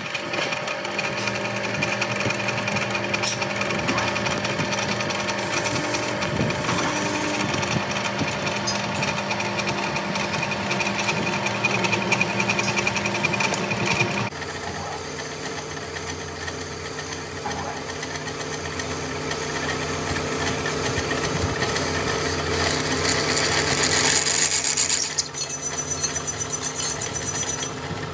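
Metal lathe running, a twist drill in the tailstock boring into a spinning metal workpiece held in a three-jaw chuck: steady machine hum with the noise of the drill cutting. The sound changes abruptly about halfway through, then swells and drops suddenly about three seconds before the end.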